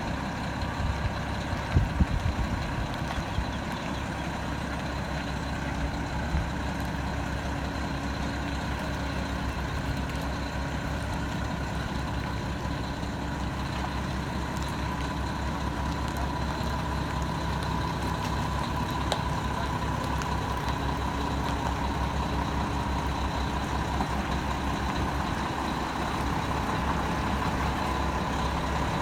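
Hino heavy truck's diesel engine running steadily under load as it pulls a trailer carrying a 7.8 m catamaran up a boat ramp. There are a few knocks about two seconds in, and a steady whine grows louder in the second half.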